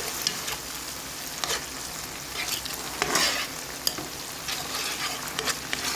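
Onion, garlic and ginger sizzling in a pan while sauces and Korean pepper are stirred in, with a steady frying hiss. A spoon scrapes and knocks against the pan every second or so.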